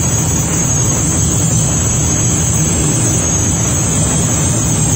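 Steady loud running noise inside the cab of a WAP-7HS electric locomotive travelling at about 180 km/h: a deep, even rumble from the wheels and running gear, with a thin high hiss over it.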